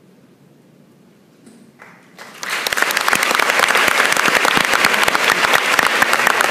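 A quiet hall for about two seconds, then audience applause breaks out and quickly builds to full, steady clapping from many people at the close of a choral piece.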